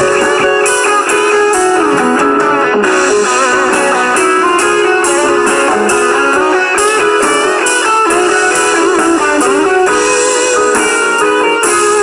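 Loud instrumental rock music led by electric guitar, with bending, sustained lead guitar notes over a full band.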